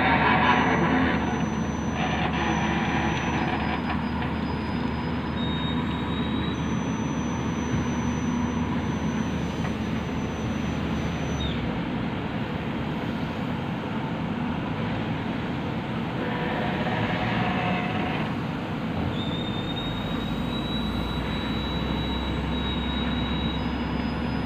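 JCB backhoe loader's diesel engine running steadily under load as the backhoe arm digs and swings its loaded bucket, with a faint high whine at times.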